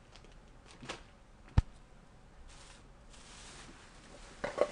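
Handling noises: a single sharp knock about a second and a half in, rustling twice after it, and a few quick clicks near the end.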